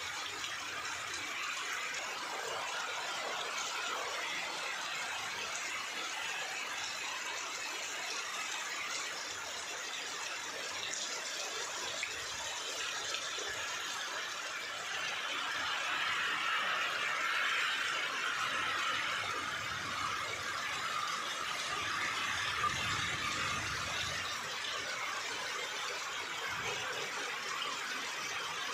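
Heavy rain pouring down on trees, leaves and ground: a dense, steady hiss that grows louder for a few seconds in the middle.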